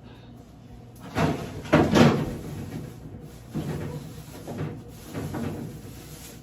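Kitchen handling noises: a run of knocks and clatter, loudest between about one and two and a half seconds in, with a few softer knocks later.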